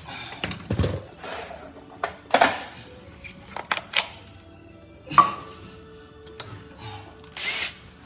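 Tool handling on a wooden floor: a string of knocks, clicks and thunks, then near the end a short burst of a cordless drill/driver spinning, the loudest sound.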